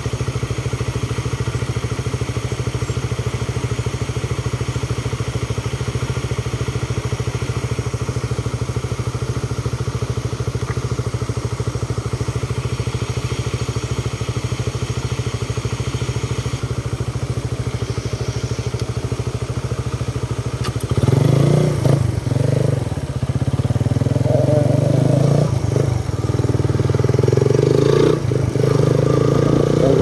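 A steady low rumble of a waterfall pouring into its plunge pool. About 21 seconds in it gives way to a louder, uneven motorcycle engine running while riding along a road, rising and falling with the throttle.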